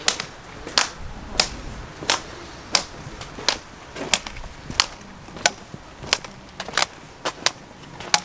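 Sharp, regular footsteps of someone walking along a wet station platform, about three steps every two seconds.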